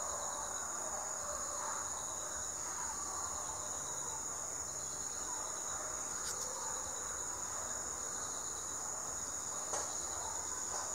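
Steady, high-pitched insect chorus, a continuous trilling in the background, with a couple of faint ticks about six and ten seconds in.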